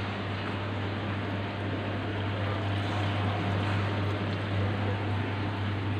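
Steady low hum and water rush of aquarium pumps and filters running in a row of fish tanks.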